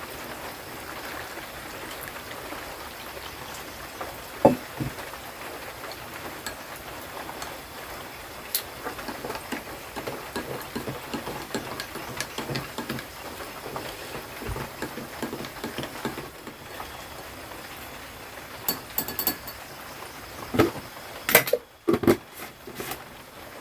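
A metal spoon clinking against a small glass as a drink is stirred, with many quick light clinks, over steady rain. Hot water is poured into the glass at the start, and a few louder knocks come near the end.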